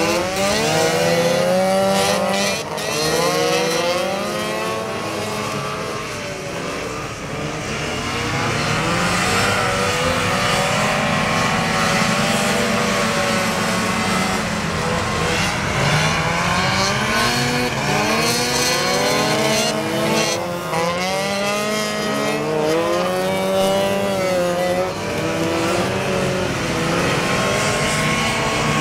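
Several vintage two-stroke snowmobile engines racing together. Their pitches rise and fall as the sleds speed up and slow through the turns.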